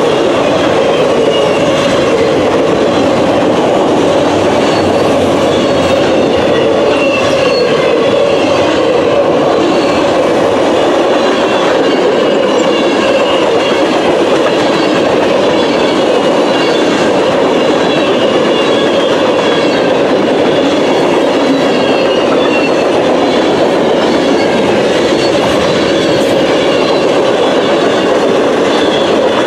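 Freight cars rolling steadily past: the continuous rumble and rattle of steel wheels on rail, with a faint high wavering squeal above it.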